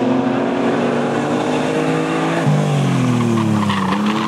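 Several racing stock car engines running at once. About two and a half seconds in, a nearer car's engine comes up loud and falls in pitch as it goes by.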